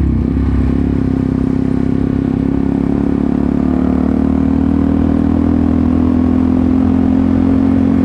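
Yamaha R15 V3 sport motorcycle's single-cylinder engine running at a steady cruise, heard from the rider's seat through a clip-on mic with a furry windshield, with the engine note firming a little in the second half.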